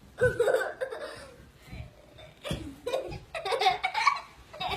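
A person laughing in bursts, near the start and again in the second half.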